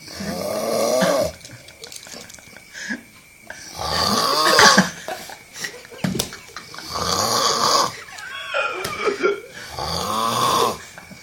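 A person snoring: four long snores, each about a second long, coming roughly every three seconds.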